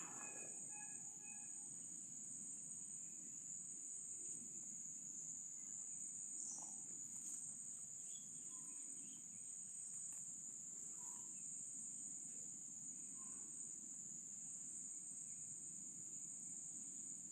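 Insects chirring steadily at one high pitch over a faint low outdoor rumble, with a few faint short calls here and there.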